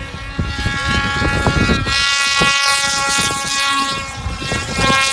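Snowmobile two-stroke engine running at high revs, its pitch held fairly steady throughout.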